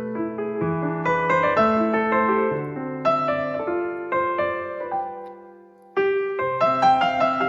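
Background piano music, gentle notes struck one after another and left to fade; it dies away to a brief lull about five and a half seconds in, then picks up again.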